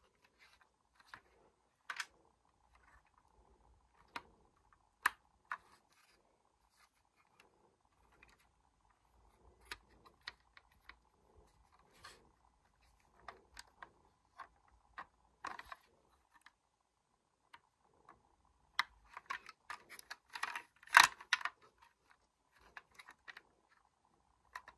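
LEGO brick model of a Kar98k rifle being handled: scattered light plastic clicks and rattles, with a busier run of clatter near the end.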